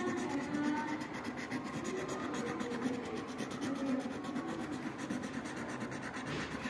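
Marker tip rubbing and scratching steadily across paper as a picture is coloured in.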